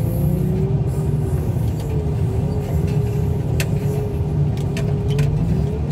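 Wheel loader's diesel engine running steadily, with a low rumble and a faint wavering whine over it. A few light clicks come in the second half.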